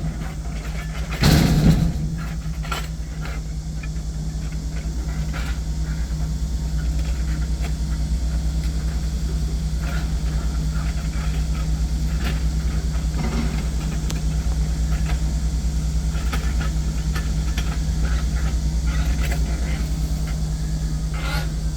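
Heavy logging machine's engine running steadily at an even pitch. Occasional knocks sound over it, with a louder crack or thump about a second and a half in.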